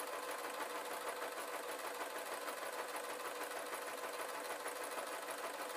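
Singer domestic electric sewing machine running at a steady speed, its needle stitching a seam down a thin sock in fast, even strokes.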